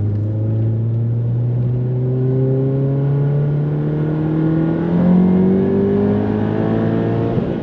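Volkswagen Golf GTI Mk7's turbocharged 2.0-litre four-cylinder under hard acceleration, heard from inside the cabin. The revs climb steadily nearly to the redline, almost reaching the rev limiter, then fall away near the end as the throttle is lifted.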